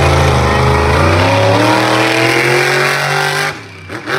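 Monster truck engine revving hard, its pitch climbing through the middle, then stopping abruptly about three and a half seconds in.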